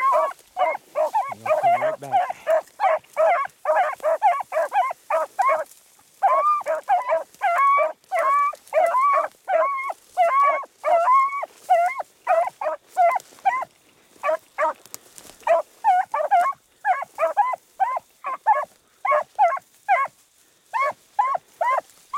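A pack of beagles baying as they run a rabbit's scent trail: short barks from several hounds in quick succession, overlapping at different pitches, with a brief pause about six seconds in.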